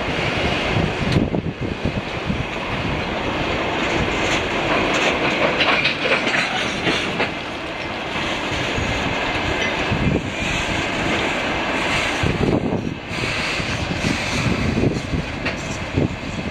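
Wagons of a track-maintenance work train (yellow conveyor wagons, a track machine, then service coaches and a flat car) rolling past, their wheels rumbling and clattering on the rails.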